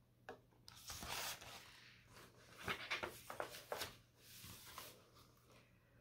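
Pages of a picture book being turned and handled: a few faint, short paper rustles and rubs.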